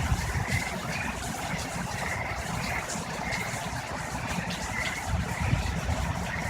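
Hurricane wind blowing in a steady rush, with gusts rumbling on the microphone near the start and again about five seconds in.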